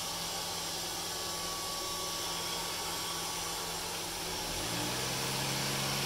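Neato D7 robot vacuum running, a steady whirring hum of its motors, while it circles in one spot. About four and a half seconds in, the hum drops lower in pitch and gets a little louder.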